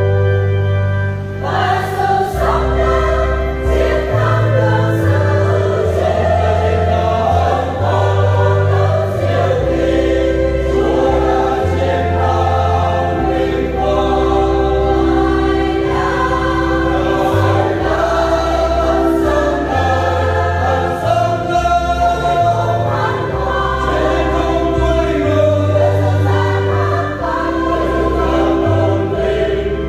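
A church choir sings an Easter hymn over an instrumental accompaniment, with a steady bass line moving from note to note every second or two.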